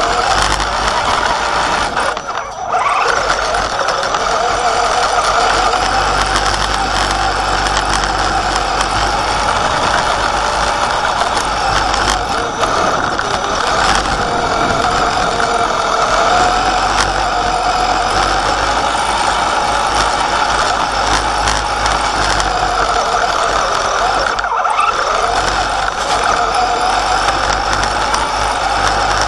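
Electric motor and two-speed gearbox of an Axial Wraith RC truck whining under throttle, the pitch wavering up and down as the truck speeds up and slows. Heard close from a camera mounted on the truck. The whine cuts out briefly twice when the throttle is let off.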